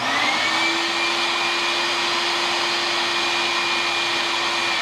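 A random orbital sander and a shop vacuum switched on together through a vacuum auto switch. The motors spin up with a rising whine, then run steadily and loudly. Right at the end the whine begins to drop as they are switched off and wind down.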